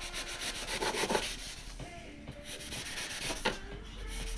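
A knife blade scraping and shaving a block of Oasis floral foam into shape, in quick repeated strokes, with a few sharper single scrapes later on.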